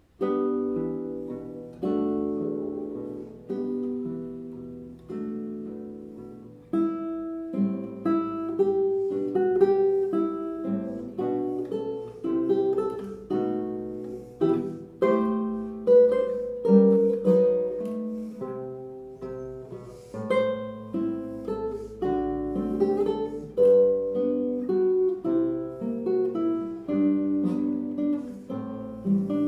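Solo classical guitar with nylon strings, played fingerstyle: the piece opens with a few ringing plucked chords, each let to die away, then about seven seconds in moves into a busier flow of notes and chords.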